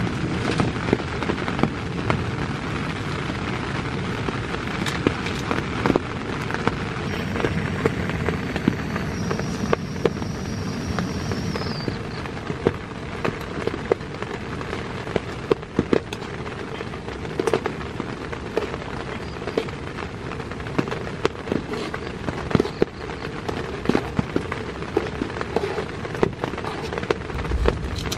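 Heavy rain pattering on a tent: a steady hiss filled with many sharp individual drop impacts.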